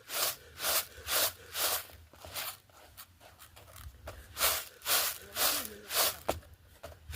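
Rhythmic scraping or rubbing strokes, about two a second, stopping for a second or so midway and then resuming.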